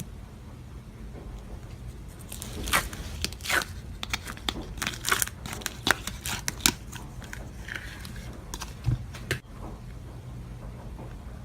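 Irregular crinkling and crackling handling noises: a run of sharp clicks and crackles of uneven loudness from about two seconds in until shortly before the end, over a low steady hum.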